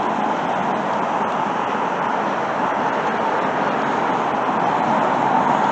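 Steady rushing noise that holds level throughout.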